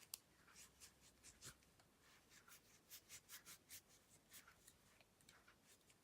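Faint, irregular sticky clicks and crackles of slime being mixed and pressed by hand, a few a second.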